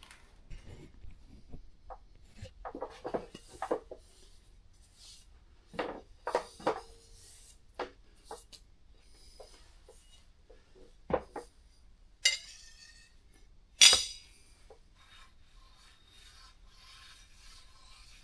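Metal gib being handled and set on a granite surface plate, with scattered knocks and two sharp metallic clinks, the second the loudest. In the last few seconds comes a faint steady rubbing as the gib is slid over the blued plate to spot its high points for scraping.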